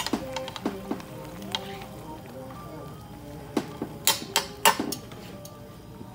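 Metal tongs clinking against a frying pan as chicken cutlets are turned in a simmering lemon-butter sauce, with a few clinks at the start and a quick run of louder ones near the end; the sauce sizzles softly underneath.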